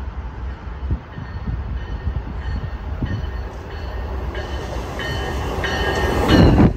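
Metra Electric bilevel electric multiple-unit train approaching along the near track, its rumble growing louder. A cluster of high steady tones joins about four seconds in and is loudest near the end as the cab car draws level.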